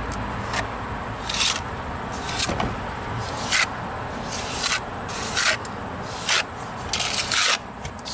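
Steel hand trowel scraping and smoothing wet rapid-set cement onto a chimney patch, about nine short scrapes at roughly one a second.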